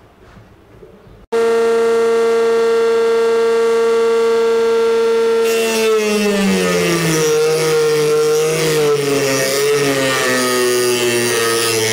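Dremel-type rotary tool running at speed with a steady high whine, starting suddenly about a second in. A few seconds later its cut-off wheel bites into a metal rod: a grinding hiss joins and the motor's pitch drops and wavers as it slows under the cutting load.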